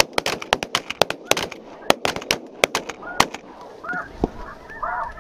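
Snow geese honking, short calls from about three seconds in, over an irregular run of sharp cracks and clicks.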